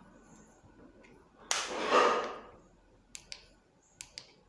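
Handling of i12 TWS earbuds and their plastic charging case: a short rustle about a second and a half in, then a few light plastic clicks as the earbuds are taken out of the case.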